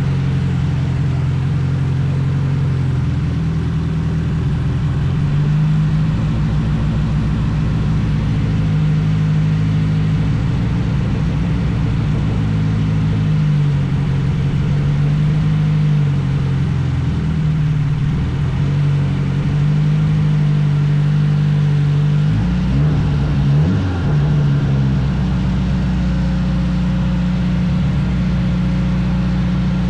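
Nissan Sentra's turbocharged SR20DET four-cylinder running through its freshly welded custom exhaust, its engine note stepping up and down every few seconds, with a few quick rises and falls in pitch about three quarters of the way through.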